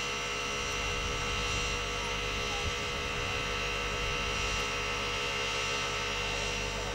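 A steady, unchanging hum made of many fixed tones, with a low rumble underneath.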